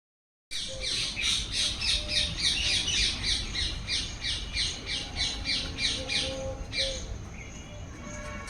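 A bird squawking: a fast, even run of short, falling calls, about three a second, that stops about seven seconds in.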